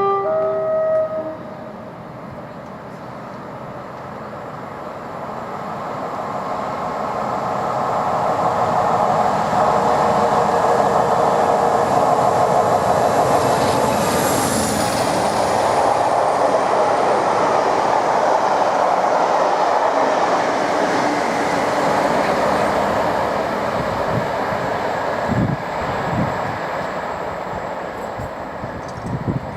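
Class 47 diesel locomotive sounding its two-tone horn briefly, then its Sulzer twelve-cylinder engine working hard as it comes by, the noise building to a long loud peak and fading away. A few low thumps near the end.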